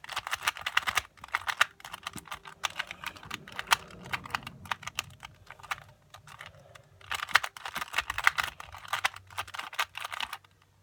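Rubik's Cube being turned fast by hand, its plastic layers clacking in a rapid run of clicks, with a short pause about two-thirds of the way through before another fast run.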